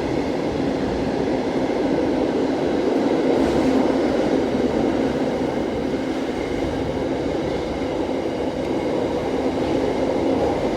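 Train running through the station: a steady, continuous rumble of wheels and running gear.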